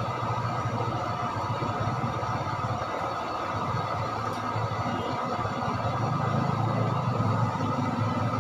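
A steady, engine-like low rumble that gets a little louder about six seconds in.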